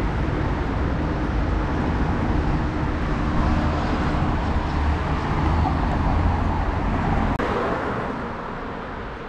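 City street traffic: cars passing a crossing, with a deep rumble of engines and tyres. About seven seconds in it breaks off abruptly to quieter street sound.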